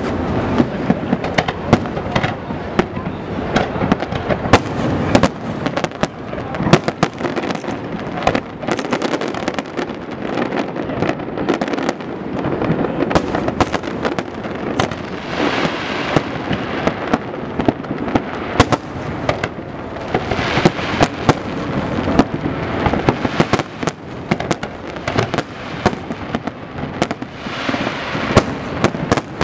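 Aerial fireworks display firing a dense barrage: many sharp bangs in quick succession over continuous crackling.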